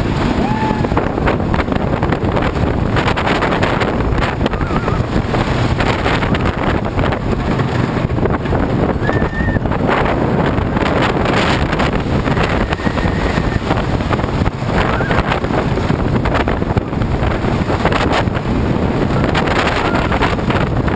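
Lightning Racer's wooden coaster train running at speed: a loud, steady rumble and clatter of the wheels on the wooden track, mixed with wind buffeting the microphone. Short screams and shouts from riders rise over it now and then.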